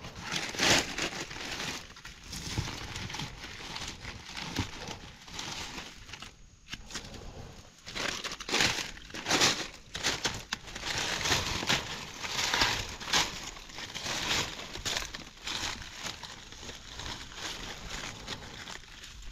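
Dry leaf litter rustling and crunching in irregular bursts as mushrooms are searched for and picked on the forest floor.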